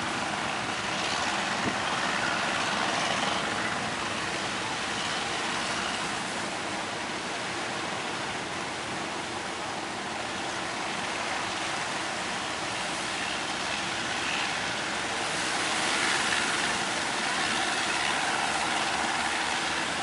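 Surf breaking and rushing on the shore, a steady wash of noise that swells twice, with the engines of fishing boats working through the waves running underneath.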